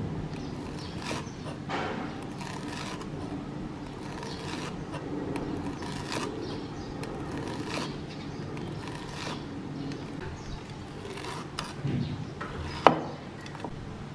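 Cleaver slicing a bundle of fresh leaves into fine shreds on a wooden chopping board: unhurried chops, roughly one every second or two, with one sharp, much louder knock of the blade on the board near the end.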